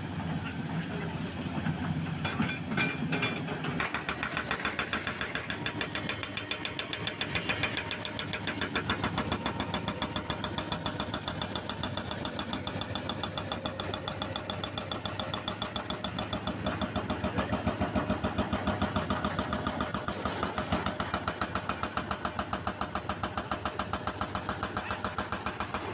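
Hydraulic breaker on a CAT 320C excavator hammering concrete in rapid, even blows, over the excavator's diesel engine. The hammering starts a few seconds in, after a short stretch of engine running with a few clicks.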